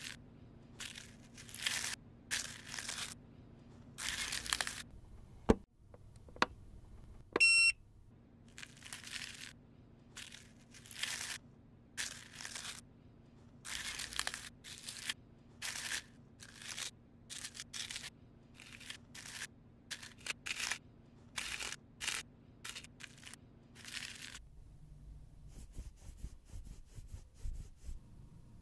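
Metal craft-knife blade scraping and carving pressed eyeshadow powder in a palette pan, in a long series of short scratchy strokes over a faint steady hum. A sharp click and then a short beep come about six and seven seconds in. The scraping stops near the end.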